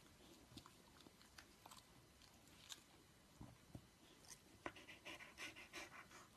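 Near silence: faint scattered clicks and soft rustling that grow busier over the last second or so.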